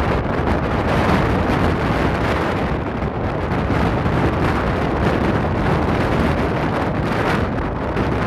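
Bell Boeing V-22 Osprey tiltrotor flying overhead: the loud, steady rumble of its two proprotors and turboshaft engines.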